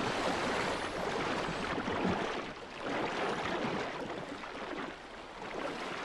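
Rushing, splashing sea water as a pod of dolphins churns through the surface, surging and easing off a couple of times.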